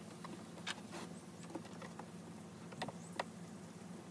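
Scattered light clicks and taps of hands handling and wiping plastic parts inside a van's engine bay, with two sharper clicks about three seconds in, over a low steady hum.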